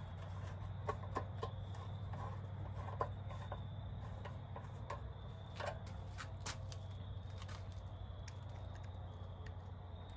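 Scattered small metallic clicks and taps of a screwdriver working on an ATV's rear drum-brake backing plate, over a steady low hum.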